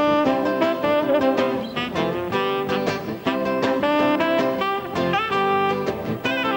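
A saxophone playing a jazzy melody over acoustic guitar accompaniment, as an instrumental passage before the singing begins.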